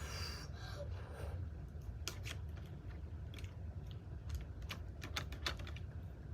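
Scattered light clicks and taps from small objects being handled, irregular and spread over the last few seconds, over a steady low hum.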